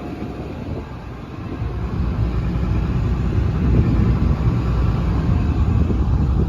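Steady low rumble of the excavator's Cummins diesel engine running, growing louder about a second and a half in.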